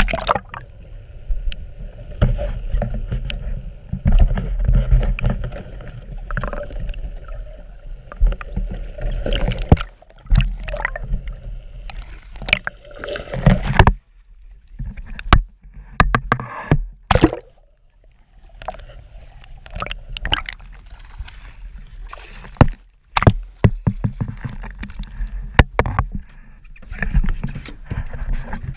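Seawater sloshing and splashing around a camera held at the surface beside a boat, with many sharp knocks and a rough low rumble.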